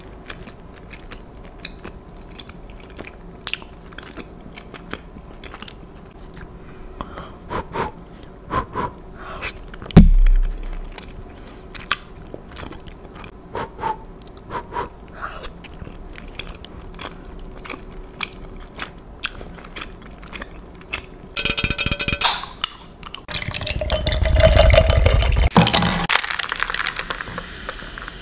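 Close-up mouth sounds of a person eating spicy instant noodles with chopsticks: soft chewing and slurping with small wet clicks. There is one heavy thump about ten seconds in, and louder noisy handling and sucking sounds over the last several seconds.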